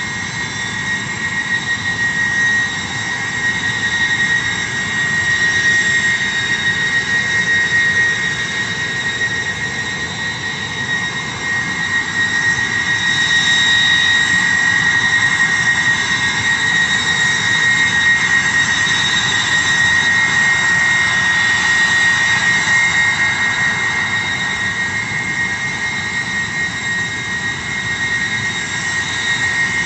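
Ilyushin Il-76MD's four Soloviev D-30KP turbofans running with a loud, steady, high screaming whine over a continuous rushing noise. The loudness swells and eases gently.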